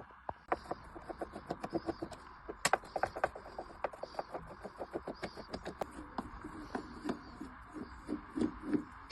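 A quick run of small clicks and taps, several a second, with a few louder knocks, from tools working on a Festool dust extractor's housing as it is taken apart to get at the motor.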